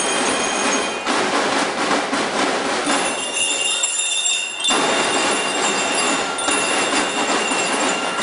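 Drum and lyre band playing: fast, dense drumming under the ringing metal notes of bell lyres. The drumming thins out for a moment near the middle while the lyre notes carry on.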